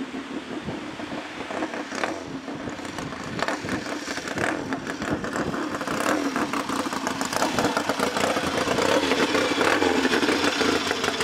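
1961 Triumph T100's 500cc parallel-twin engine running as the motorcycle rides up, growing louder as it approaches.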